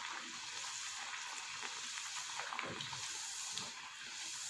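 Rice-flour dough disc deep-frying in hot oil in a kadai: a steady sizzle.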